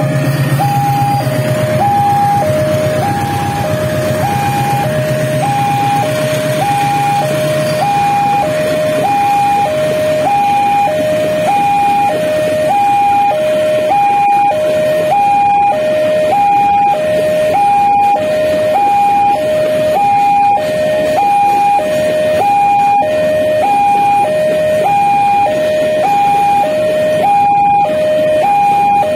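Level-crossing warning alarm sounding two electronic notes, high and low, alternating about once a second without a break. Underneath it, the low rumble of a CC206 diesel-electric locomotive fades over the first eight seconds as its train of container wagons rolls past.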